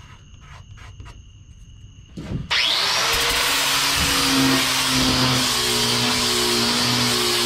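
Faint light clicks, then about two and a half seconds in an angle grinder with a sanding disc spins up with a rising whine and runs steadily, sanding a fiberglass boat floor.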